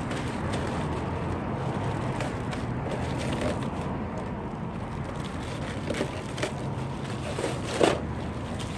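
Plastic wrapping being pulled off and crinkled, in scattered crackles, with the loudest crackle near the end, over a steady low background noise.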